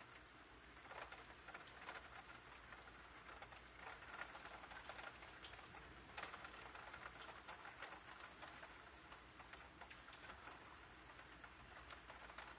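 Faint patter of rain, many scattered soft ticks over a low steady hum.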